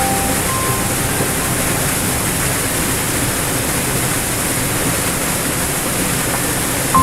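Small waterfall cascading over rocks into a pool: a steady, even rush of splashing water.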